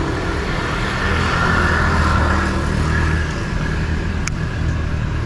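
Motor traffic running close by: a steady low engine hum that swells between about one and three seconds in. A single sharp click comes a little after four seconds.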